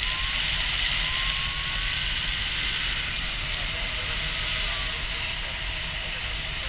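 Wind rushing steadily over an action camera's microphone in paragliding flight: a low buffeting rumble under a constant hiss.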